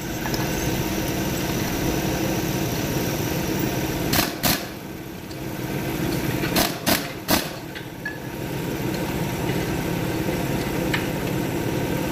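Pneumatic impact wrench running against the wheel-hub bolts of a walking tractor, a steady mechanical rattle broken by short sharp blasts, two about four seconds in and three around seven seconds in.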